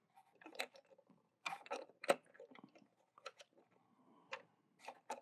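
Faint scattered clicks and taps of hard plastic as a small Grogu action figure is fitted into the cockpit of a Hasbro Razor Crest toy ship, with a couple of sharper clicks about two seconds in.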